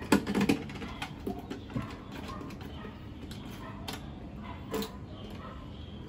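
Sharp clicks and light knocks from a motorcycle top box's lock and latch being worked by hand: a quick cluster in the first half second, then a few scattered clicks.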